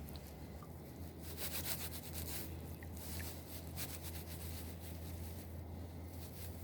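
Gold pan being worked: faint rubbing and scraping of crushed roasted ore and heavy black sand shifting in the pan, with scattered small clicks, over a steady low hum.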